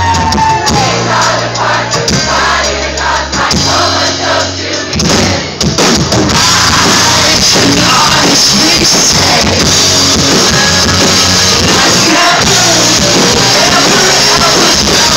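Live rock band playing an instrumental passage. About six seconds in, the full band comes in loud and dense after a lighter stretch of bass notes.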